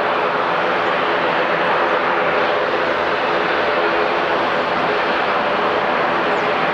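Jet engines of a widebody airliner running with a steady, loud roar and an underlying drone of a few held tones.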